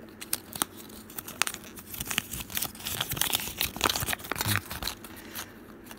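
Thin plastic wrapping and a folded paper insert from a capsule toy crinkling as they are handled and unfolded. The sound comes as irregular sharp crackles that thin out near the end.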